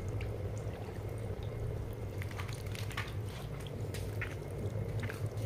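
Water from the small jets of an inflatable splash-pad sprinkler spattering and dripping onto wet paving, a steady light hiss with scattered small splashes and drips.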